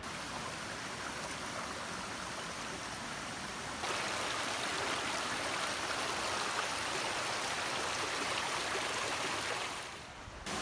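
Small mountain stream running over pebbles and rocks: a steady rush of water that jumps louder about four seconds in and drops away near the end.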